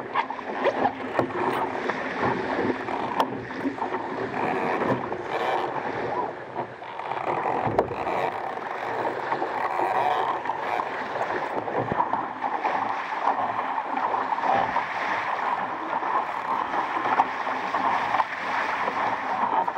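Water rushing and splashing along the hull of an RS Aero sailing dinghy under way, with a few sharp knocks.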